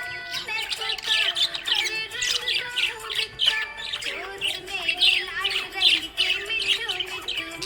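Budgerigars chattering: rapid warbling chirps and squawks, one after another with hardly a break.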